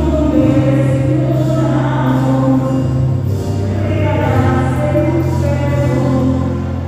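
A woman singing a devotional Marian hymn over steady, sustained low accompaniment notes.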